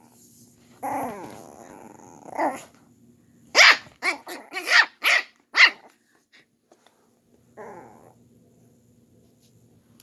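Small dog growling, then letting out a quick run of about five sharp barks, with one more short bark or yelp near the end.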